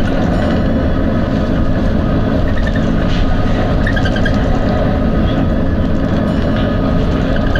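Volvo B9TL double-decker bus on the move: its diesel engine and running gear give a steady, loud drone with no break, and a few faint high squeaks over it.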